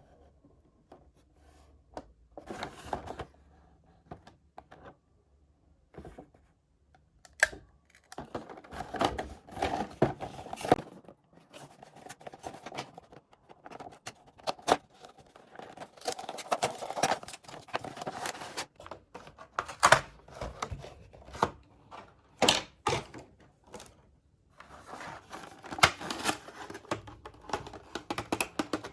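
Toy-car blister packaging being handled and opened by hand: plastic and cardboard crinkling, clicking and tearing in irregular bursts, with short pauses between.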